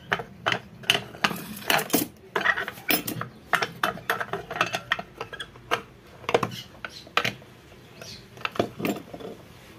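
Irregular sharp metal clicks and knocks of a screwdriver prying and tapping at the seam of an Orpat ceiling fan's motor housing to split it open, thinning out near the end.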